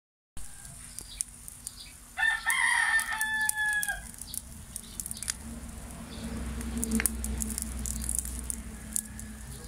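A rooster crows once, about two seconds in: one long call of about two seconds that drops in pitch at the end. Scattered small crackles from the charcoal fire come and go throughout.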